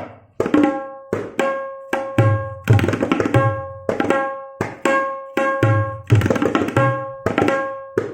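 Solo tabla playing a farmaishi chakradhar in teentaal, a composition meant to imitate bursting fireworks and crackers. Quick clusters of sharp strokes on the right-hand drum ring at a clear pitch, mixed with deep booming strokes on the left-hand bass drum.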